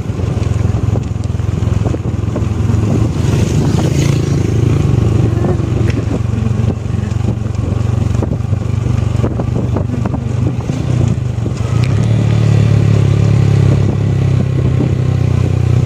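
Motorcycle engine running steadily while riding, heard from on the bike, with road and wind noise; the engine drone grows a little louder about three quarters of the way through.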